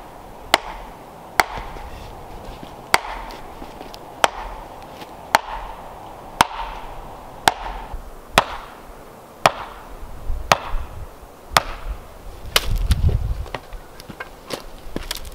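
A hammer striking the top of a wooden stake, driving it into the ground with about a dozen steady blows roughly a second apart. The blows give way to lighter, irregular knocks as a board is handled near the end.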